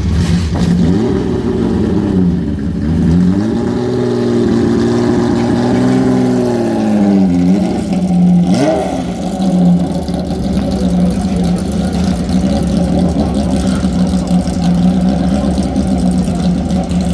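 BMW M1 ProCar's 3.5-litre straight-six racing engine at idle, blipped once about a second in, then held at raised revs for about four seconds before dropping back, blipped once more, and settling to a steady idle.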